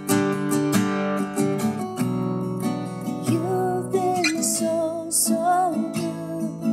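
A woman singing a slow worship song while strumming an acoustic guitar. The guitar strums alone at first and her voice comes in about three seconds in.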